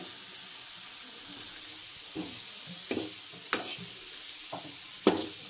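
Onions and spice masala frying in oil in a metal kadhai, a steady sizzle. A steel ladle stirs them, scraping and knocking against the pan several times in the second half; the sharpest knocks come about three and a half and five seconds in.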